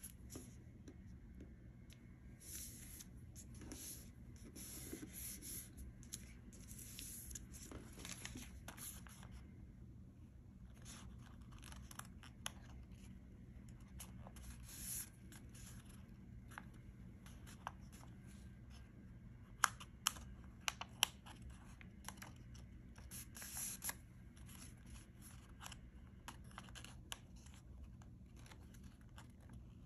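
Printed paper rustling and crinkling in short bursts as hands fold, pleat and crease narrow strips, with three sharp crackles about two-thirds of the way through.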